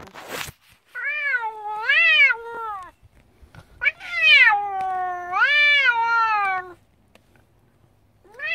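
Scottish Fold cat giving two long, wavering complaining meows, the second longer and falling in pitch at its end.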